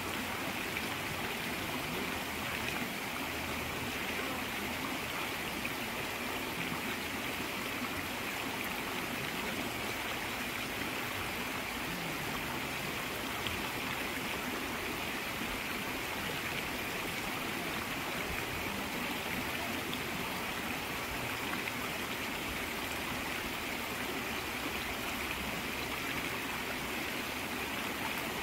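Mountain trout stream running steadily, an even rush of water with no breaks.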